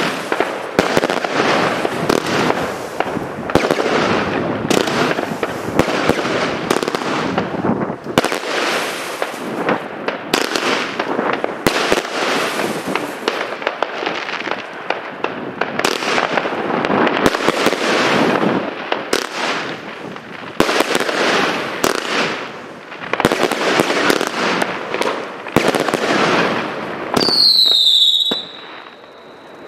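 Evolution Fireworks 'Skyline on Fire' firing: a rapid barrage of shots and bursts, densely packed. Near the end comes a whistling tone falling slightly in pitch, and then the firing dies down.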